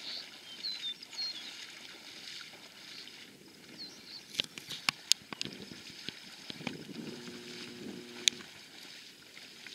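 Legs wading through shallow water and reeds, sloshing and swishing. There are a few short high chirps in the first second, then a cluster of sharp clicks about four to five seconds in and one more near the end.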